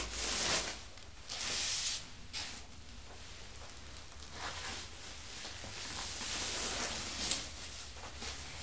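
Plastic protective wrapping rustling and crinkling in irregular bursts as a flat-screen TV panel is slid out of it.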